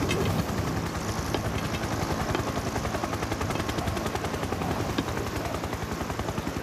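Helicopter hovering close overhead: a loud, steady, rapid rotor chop.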